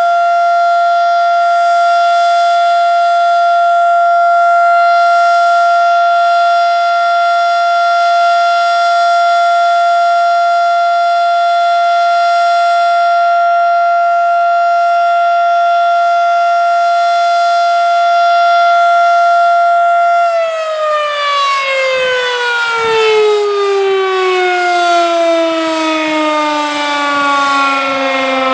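Federal Signal Model 5 electromechanical tornado siren sounding a steady alert tone; about twenty seconds in the signal ends and the siren winds down, its pitch falling steadily.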